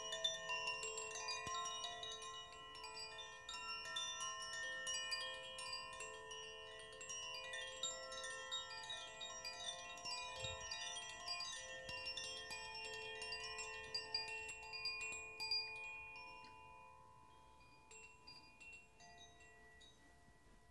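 Metal wind chimes stirred by hand: a dense run of small bright tinkles over overlapping ringing tones, thinning out and fading after about 16 seconds.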